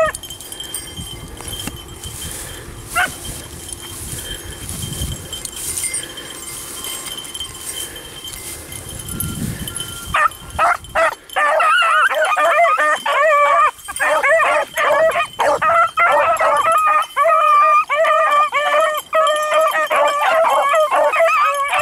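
Beagles baying and howling. It begins about halfway through as a loud, nearly unbroken run of wavering calls, after quieter mixed sounds with an occasional yip.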